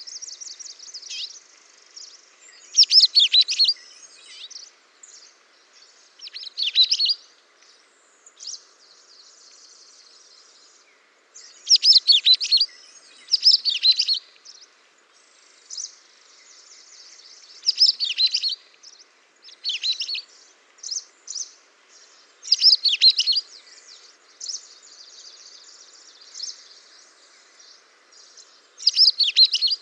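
Songbirds singing and chirping: loud, high, quick trilling phrases about a second long every few seconds, with softer twittering between them.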